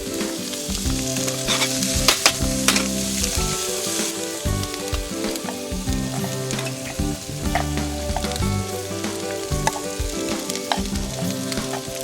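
Food sizzling and frying in a pan, with the utensil clicking and scraping against the pan as it is stirred.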